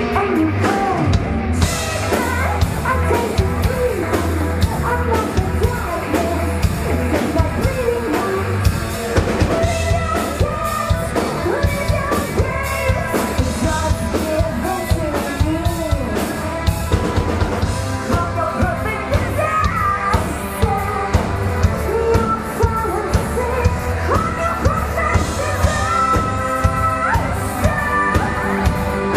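A rock band playing live: a female lead singer over a steady drum-kit beat, bass and full band.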